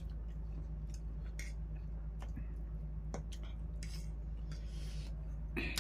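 Metal forks and spoons clicking and scraping against dinner plates while eating noodles, in scattered short strokes, the loudest one near the end. A steady low hum runs underneath.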